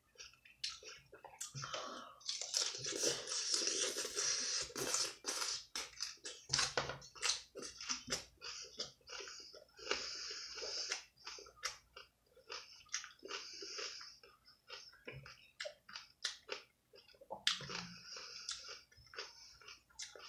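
Chewing raw salad (lettuce, cucumber, broccoli), with many small sharp crunches and stretches of crackling.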